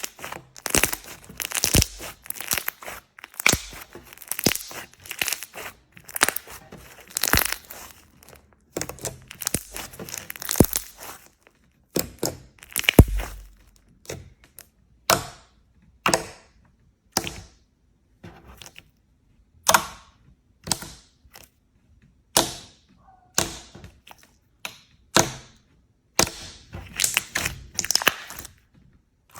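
Slime being squeezed and poked by hand, crackling and popping. The first half is a dense run of crackles; after that come separate sharp pops, about one a second.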